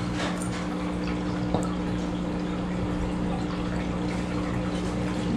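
A running home aquarium: a steady trickle and bubbling of circulating water with a constant low hum from the tank's pump.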